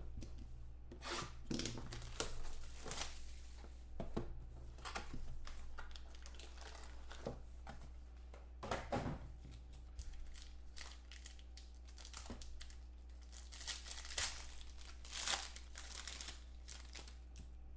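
Foil and plastic wrapping of a trading-card pack crinkling and tearing as it is opened by hand, in irregular bursts of crackle.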